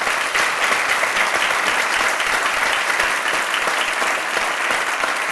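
Audience and panelists applauding: dense, steady clapping of many hands.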